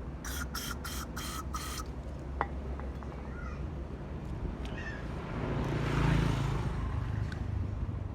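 Aerosol carburetor cleaner sprayed in five quick hissing bursts into a generator carburetor's jets, with a few light clicks after. A broader swell of noise rises and fades about six seconds in.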